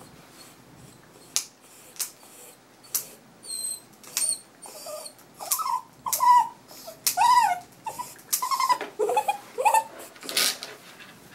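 Muzzled Havanese dog whining in a run of short, high cries that bend up and down, with several sharp clicks scattered through.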